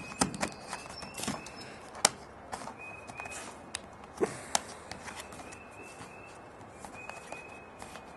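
Scattered clicks and taps of a netbook's plastic case and battery being handled.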